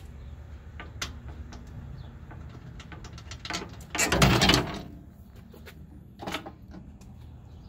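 Clicks and a loud scraping rattle about four seconds in, with a smaller one later, as the truck's aluminium AC condenser is worked loose from its mounting brackets by hand.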